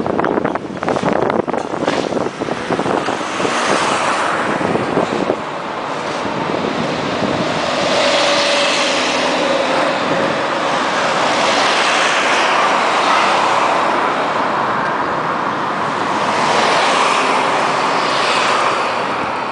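Tram running between stops, heard from inside: the wheels clatter unevenly for the first few seconds, then give way to a steady rolling noise on the rails that swells and eases in slow waves.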